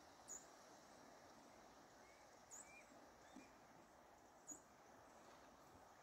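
Near silence: quiet outdoor background with three faint, brief high-pitched squeaks or clicks.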